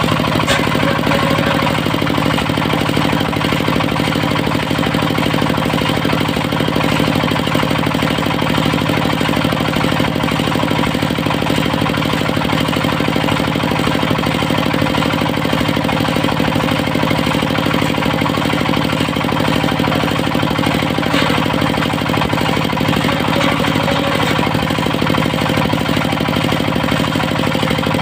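Diesel engine of a portable circular sawmill running steadily under power, with an even knocking beat and no change in pace.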